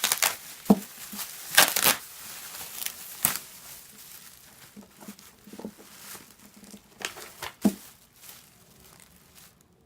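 Packaging being handled during an unboxing: irregular rustling and crinkling bursts with a couple of dull knocks, tapering off toward the end.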